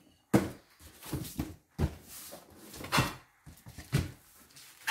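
Cardboard shipping box and packing being handled: a sharp knock near the start, then several more knocks and thumps about a second apart, with cardboard scraping and rustling between them.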